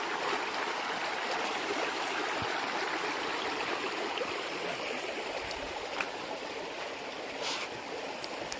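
Steady rush of the East Fork San Gabriel River flowing over rocks, with a faint click about six seconds in.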